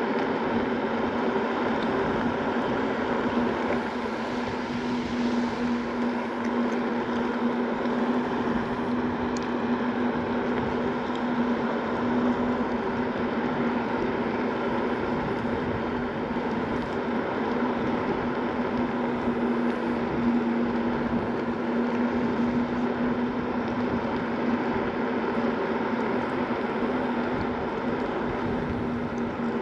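Segway Ninebot Max G2 electric scooter riding at a steady speed: its hub motor gives a steady hum over the rushing noise of its tyres on coarse asphalt.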